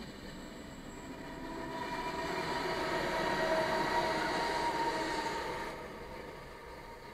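Regional passenger train passing over a level crossing, its running noise with a faint steady whine swelling to a peak about three to four seconds in, then dropping away. Heard from inside a car waiting at the crossing.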